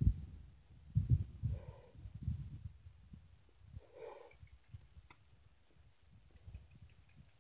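A horse snorts twice, two short breathy blows about two and a half seconds apart, over scattered low thumps in the first couple of seconds.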